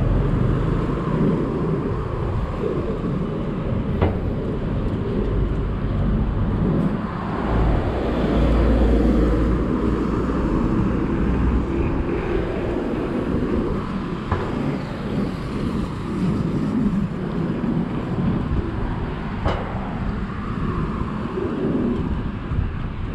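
Road traffic on a busy multi-lane street: cars passing in a steady wash of noise, with a deep rumble swelling about eight seconds in. There are two short sharp ticks, one a few seconds in and one near the end.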